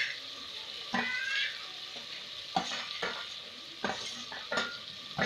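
Spice paste sizzling as it fries in oil in a cooking pot, with a metal spoon scraping in about six irregular strokes while chopped green onions go in.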